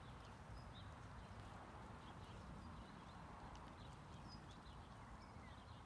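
Near silence: faint outdoor ambience with a low rumble and a few faint, short, high chirps scattered through it.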